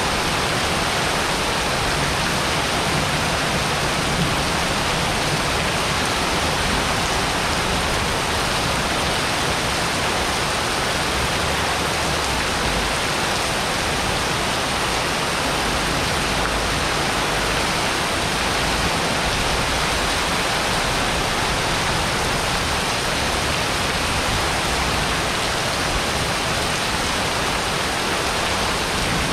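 Heavy rain pouring onto a paved courtyard: a steady, even hiss that does not let up.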